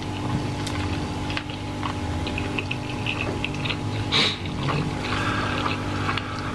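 Close-miked eating: noodles being slurped and chewed, with many small wet mouth clicks and smacks over a steady low hum, and one louder breathy noise about four seconds in.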